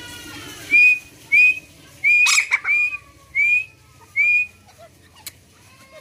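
Grey francolin calling: six short, shrill whistled notes, each hooking slightly upward, in an even series that stops a little past the middle. A sharp click falls on the third note.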